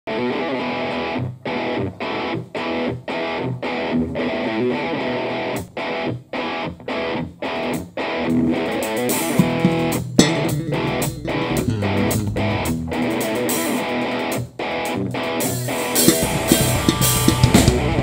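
Rock band with electric guitar, electric bass and drum kit playing: a stop-start riff with short breaks for the first several seconds, the low end filling in about halfway, and the band growing fuller and louder near the end.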